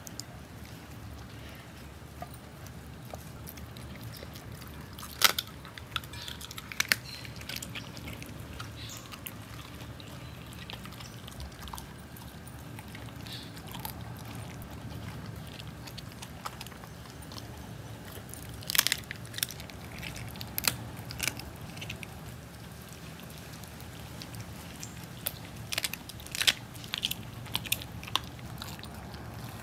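Siberian Husky chewing and biting raw chicken: scattered sharp crunches and wet bites in short clusters, the busiest about five, nineteen and twenty-six seconds in, over a steady low hum.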